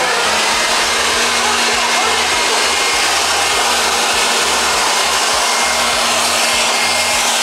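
Corded electric leaf blower running steadily, blowing air onto slime on a car's hood: a constant rush of air with a steady hum and a faint high whine.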